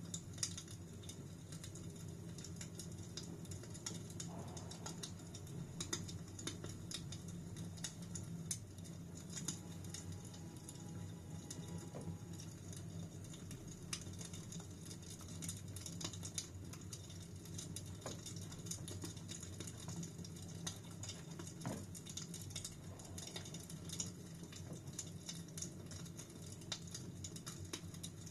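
Wood fire crackling, with small irregular pops and snaps over a steady low rumble.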